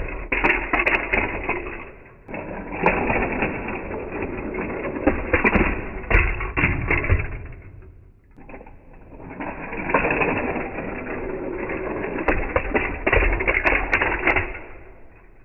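Plastic toy parts being handled, with clattering and clicking, in two spells separated by a short lull.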